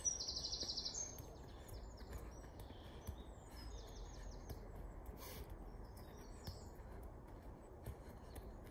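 Small birds chirping, with a fast high trill in the first second and scattered calls after it, over a steady low background rumble; a few faint taps are heard now and then.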